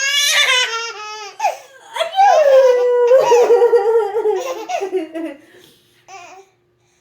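A little girl laughing in long, high-pitched squeals and giggles that trail off and stop shortly before the end.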